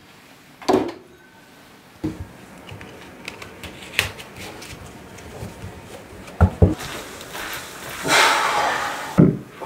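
Handling sounds at a card table: a deck of playing cards being shuffled and knocked square, a string of sharp knocks with a brief rustling rush near the end, and glasses set down on the table.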